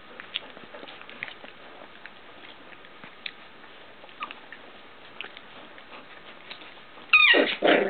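Litter of young puppies nursing and jostling under their mother: faint wet suckling, smacking and scrabbling clicks. About seven seconds in, a sudden loud high-pitched puppy yelp that falls in pitch.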